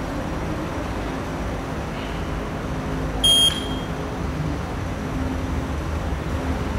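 A single short, loud electronic beep about three seconds in: the sound signal of an auditory reaction-time test, given for the athlete to react to. It plays over a steady low background hum.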